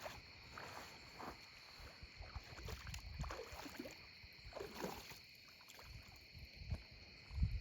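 Faint nighttime outdoor ambience: a steady insect chorus, two high continuous trills, with scattered low rumbles and small handling sounds.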